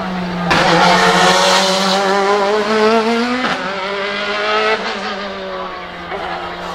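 BMW M4 DTM race car's naturally aspirated 4.0-litre V8 at hard throttle. The revs climb from about half a second in, then drop sharply at an upshift about three and a half seconds in.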